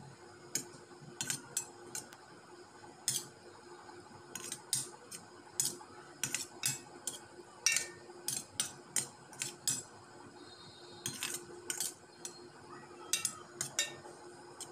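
A metal spoon clinking and scraping against a stainless steel plate while mashing and mixing cooked rice. The sharp clinks come irregularly, a few a second, over a faint steady hum.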